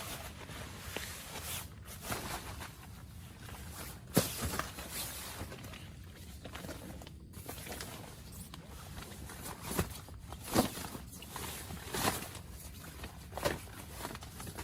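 Heavy rain and wind hissing steadily around a tent, with irregular knocks and rustles throughout. The sharpest knocks come about four seconds in and several more near the end.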